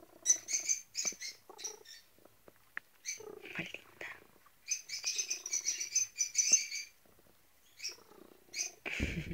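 Cats, a grey-and-white mother cat with her kittens, making soft high chirps and squeaks in several short runs with pauses between, while the cat is being stroked. Near the end there is a thump of handling against the phone.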